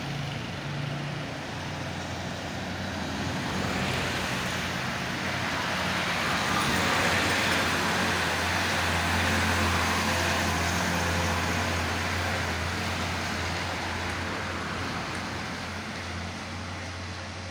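Road traffic with a heavy truck engine running, a steady low hum under road noise that grows louder through the middle and eases off near the end.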